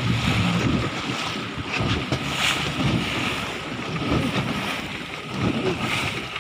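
Water slapping and splashing against a small rescue boat's hull, with wind buffeting the microphone. There are louder splashes about two and a half seconds in and again near the end.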